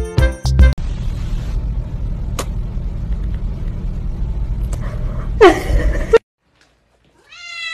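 A kitten's short, loud mew whose pitch falls, over a steady low rumble of handling noise on a phone microphone with a couple of faint clicks. After a moment of silence a long, steady cat meow begins near the end.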